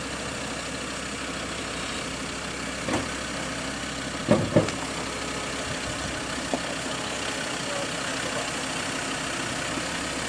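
A vehicle engine idling steadily. Two sharp knocks come just after four seconds in, with fainter single knocks shortly before and after.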